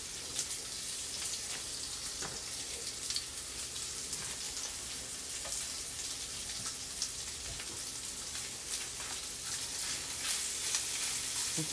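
Sliced smoked sausage sizzling in hot fat in a frying pan, a steady hiss with scattered little pops and crackles.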